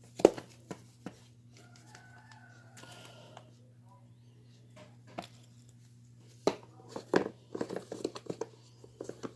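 Handling noises from trying on new shoes and their packaging: a sharp knock just after the start, a few taps, then a busy run of taps and crinkling from about two-thirds of the way in. A low steady hum runs underneath.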